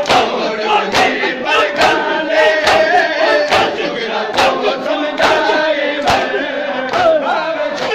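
Crowd of men doing matam: open hands striking bare chests together in a steady beat, about once a second, under a chanted noha lament sung by many voices.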